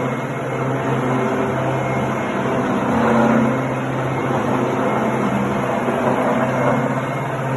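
Milling machine running, a steady mechanical hum with a slight swell about three seconds in.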